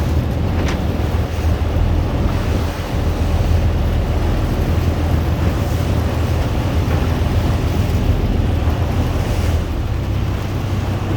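Sea waves surging against a shore with strong wind buffeting the microphone, a steady deep rumble under the hiss of the surf.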